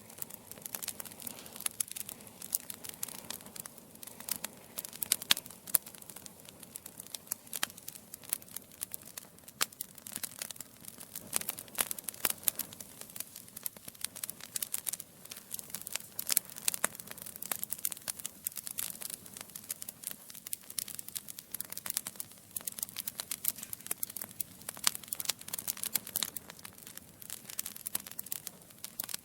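Logs burning in a fireplace, crackling steadily with dense, irregular snaps and occasional louder pops.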